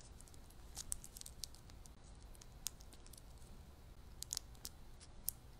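Faint, irregular light clicks and ticks from small handling noises over quiet room tone, with a small cluster of them a little past four seconds in.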